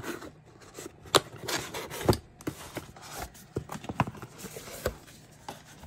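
Small cardboard box being handled and slid out of its printed paper sleeve: scattered light taps and scrapes of card on card and on the tabletop, the sharpest about one and two seconds in.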